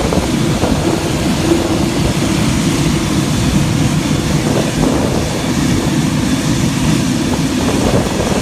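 Boeing 787-9 jet engines, a steady loud rumble with a rushing noise over it and no distinct events.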